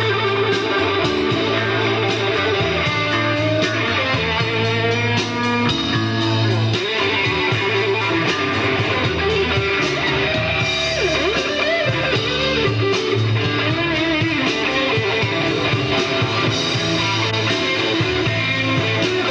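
Live rock band playing: an electric guitar solo with bent, wavering notes over bass and drums.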